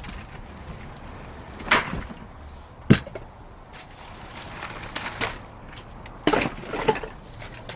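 Rummaging through dumpster contents: a few scattered knocks, clatters and rustles as items are moved around, one sharp knock about three seconds in and a short cluster near the end.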